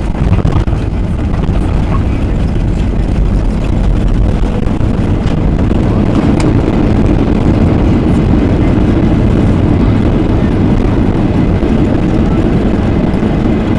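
Boeing 737-800 landing, heard from inside the cabin over the wing. A sudden jolt of touchdown right at the start, then a loud, steady low roar of the CFM56-7B engines in reverse thrust with the wheels rumbling on the runway during the rollout.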